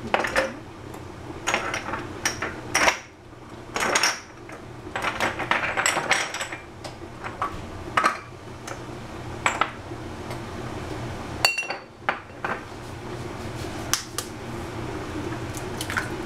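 Kitchen clatter: dishes and utensils clinking and knocking at irregular intervals over a steady low hum, ending with an egg being cracked into a ceramic bowl.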